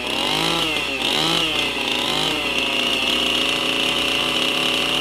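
Chainsaw running at high speed, its bar cutting into a log to clear the floor of a notch; the engine note sags and recovers about three times as the chain bites into the wood.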